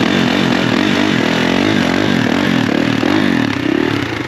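ATV engine revving up and down over and over, its pitch rising and falling about every half second, dropping lower near the end.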